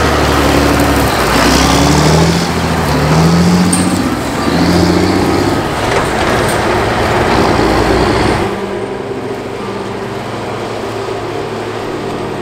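John Deere 8220 tractor's six-cylinder diesel engine pulling a grain trailer away, its note climbing in several short rising steps as it accelerates. About two thirds of the way through it gives way abruptly to the quieter, steady drone of a Claas Tucano combine harvester.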